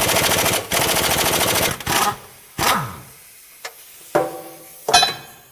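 Impact wrench hammering rapidly to loosen a 19 mm brake caliper bolt, stopping just under two seconds in, followed by a few short bursts.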